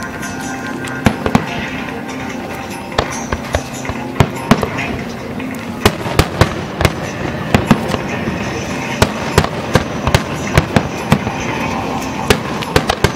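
Aerial firework shells bursting in a rapid, irregular series of sharp bangs: a couple about a second in, then many more from about three seconds on, over a steady background din.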